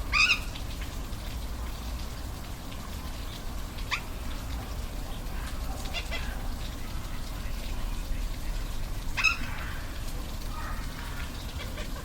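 Steady rush of a waterfall with short, high animal calls over it, four of them; the loudest comes at the very start and another about nine seconds in.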